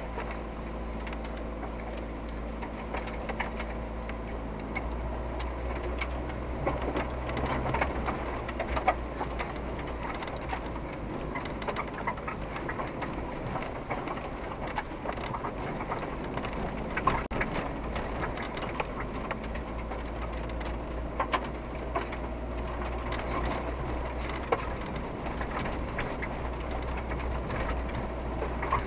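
An SUV driving slowly over a rutted, muddy dirt track, heard from inside the cabin: the engine's steady hum with many small knocks, clicks and rattles as the body and suspension take the bumps. The even engine hum is clearest in the first few seconds, after which the clattering dominates.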